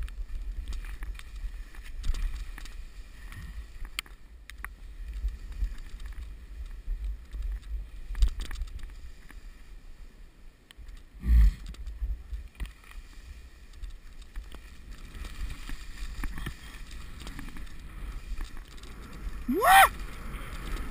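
Skis sliding over wet snow, with wind rumbling on the microphone and scattered clicks throughout. A thump about eleven seconds in, and near the end a short, loud whoop from a skier that rises sharply in pitch.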